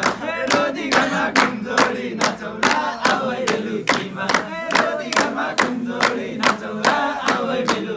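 A group of young men singing a Nepali dohori folk song together, clapping hands in a steady rhythm of about two to three claps a second.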